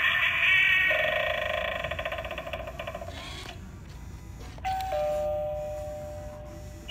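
Halloween novelty doorbell playing through its small speaker: a wavering, fading effect sound, then an electronic two-note ding-dong chime, high note then low, about two-thirds of the way in, ringing on and dying away.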